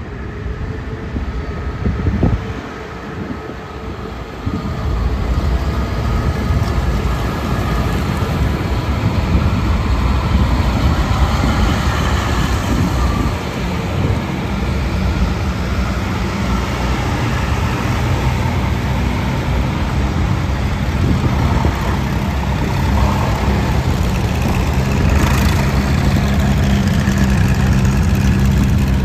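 Tractor engines running as a line of tractors drives past. The sound gets louder about four seconds in, and a deep, steady engine note grows stronger in the second half as a large tractor comes up. There is a brief knock about two seconds in.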